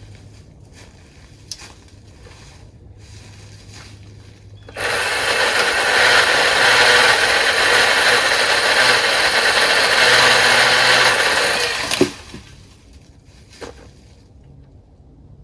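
Milwaukee M18 cordless pole saw cutting through cedar wood. The cut starts suddenly about five seconds in, runs loud and steady for about seven seconds, and stops with a sharp knock.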